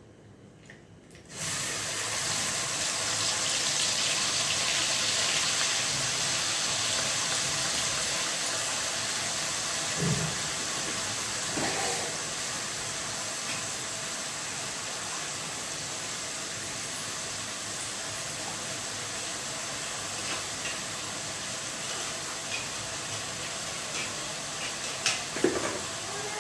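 Ground onion, garlic and ginger paste sizzling in hot oil in a kadai, starting suddenly about a second in as the wet paste goes into the oil, then settling to a steady sizzle. A few knocks of a utensil against the pan.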